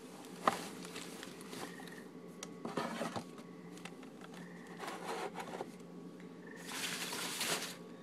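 Plastic tubs of protein powder being handled and shifted on a pantry shelf: a light knock about half a second in, then a few short scraping and rustling handling noises, over a steady low hum.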